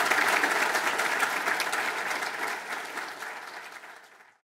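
Audience applauding, a dense spatter of many hands clapping that fades away near the end.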